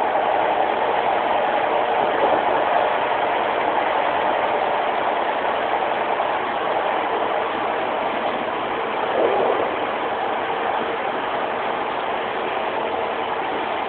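Passenger-saloon noise of a Class 156 Super Sprinter diesel multiple unit: a steady drone from its underfloor diesel engine and running gear, with a brief swell about nine seconds in.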